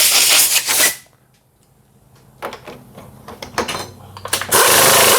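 Two loud blasts of compressed air, one lasting about a second at the start and a shorter one near the end, with light metallic clicks and knocks of tooling being handled between them.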